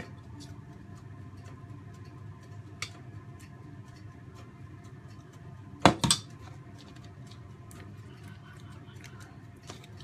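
A metal spoon clinking twice in quick succession against a steel pot of béchamel sauce about six seconds in, with one fainter clink earlier, over a steady low hum.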